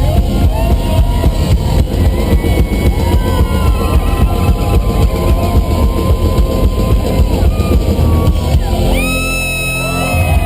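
Live country-rock band playing loudly through the arena PA with a steady drum beat and guitars, then holding a sustained final chord from about nine seconds in.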